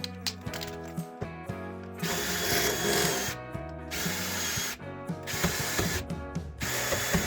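Power drill running in three short bursts, the first and longest about two seconds in, over background music with a steady beat.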